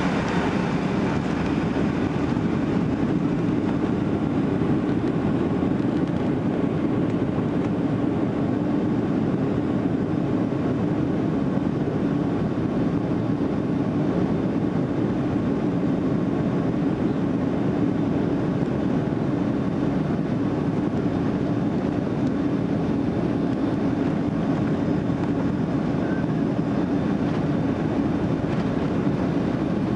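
Boeing 757 jet engines running steadily at low power as the airliner lines up on the runway, heard inside the cabin as an even drone with a low hum and no spool-up.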